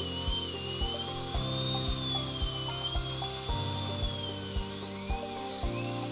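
High-speed dental handpiece with a fine flame-tip diamond bur whining, its pitch wavering up and down as it cuts groove anatomy into a composite filling. Background music with a steady beat plays underneath.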